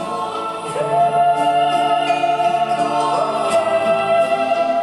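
Choral singing: several voices holding long notes in chords, shifting to a new chord about a second in and again after about three seconds.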